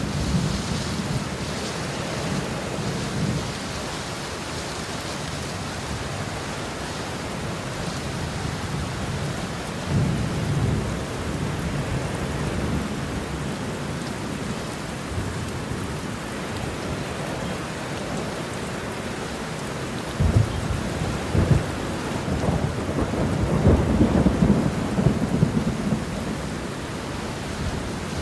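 Steady rain with rumbles of thunder, the loudest rolling in with a few sharp cracks about twenty seconds in and fading a few seconds before the end.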